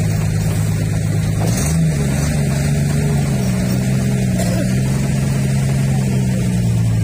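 Fishing boat's engine running steadily, its pitch rising a little about one and a half seconds in as it picks up revs, then holding at the higher speed.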